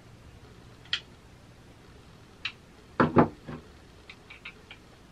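Tools being handled while a Torx bit is tried in the screws of a DeWALT reciprocating saw's plastic housing: a few sharp clicks, a louder double knock about three seconds in, then several light ticks.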